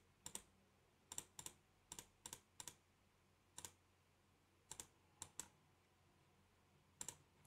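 A dozen or so faint computer mouse clicks at irregular intervals, many in quick press-and-release pairs.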